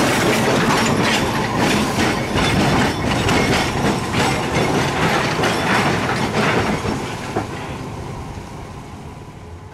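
Hiroden 100-type tram, car 101, rolling past and away along street track, its wheels clicking over the rail joints. The sound fades steadily from about seven seconds in as the tram recedes.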